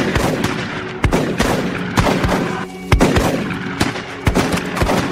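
A rapid, irregular volley of about ten shotgun blasts, each with a short echoing tail, over sustained music.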